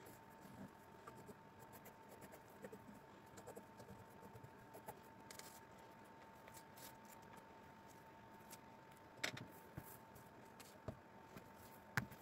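Near silence with faint handling sounds: light scratching and rustling as a rayon scarf is marked with a pencil and smoothed out on a table, with two sharper knocks, one about nine seconds in and one near the end, over a faint steady tone.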